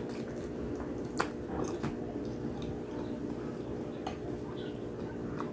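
Close-up wet chewing and lip-smacking of sticky, gelatinous braised pork hock (adobong pata), with sharp wet clicks now and then, the loudest about a second in. A steady low hum runs underneath.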